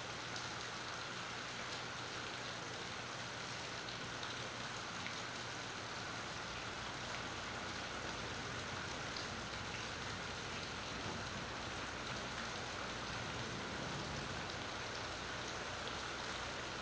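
Steady rain falling on a marina's water and docks: an even hiss with scattered faint drop ticks, picked up by a phone's built-in microphone.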